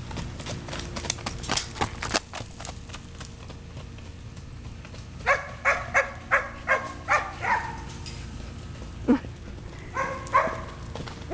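Horse's hoofbeats cantering on dirt for the first couple of seconds. Then a dog barks in a quick run of about six barks, gives a single bark a little later, and barks again in short runs near the end.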